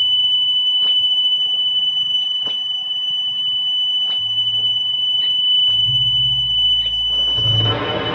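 Electric guitar feedback ringing as one steady high whine over low, sustained bass notes, with a soft click repeating about every 0.8 s. About seven seconds in, a wash of noise swells in under the whine.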